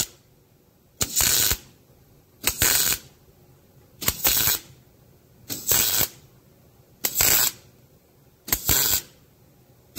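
Wire-feed welder stitch-welding a steel plate onto a truck frame: short bursts of arc, each about half a second long, repeated about every second and a half, six times.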